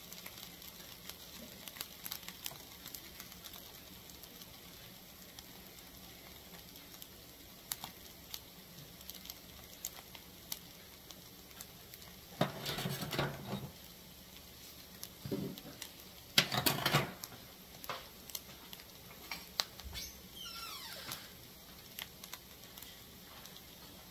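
Skillet of turkey sausage and vegetables simmering with a faint steady sizzle, under scattered light clicks of kitchen utensils. A couple of louder clattering scrapes stand out, the loudest about two-thirds of the way through.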